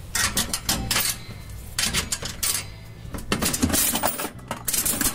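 Coins clinking into the slot of a metal toy vending machine and its knob being turned. The metallic clinks and rattles come in three clusters over several seconds.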